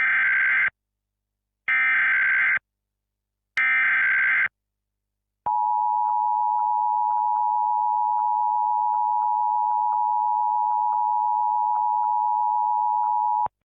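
Mock Emergency Alert System alert opening: three short bursts of SAME header data tones, each just under a second, then the steady two-tone EAS attention signal held for about eight seconds, cutting off suddenly.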